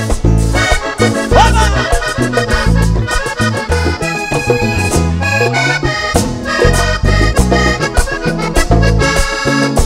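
Live vallenato band playing an instrumental passage between sung verses, led by a Hohner button accordion, with bass, electric guitar and percussion keeping a steady beat beneath it.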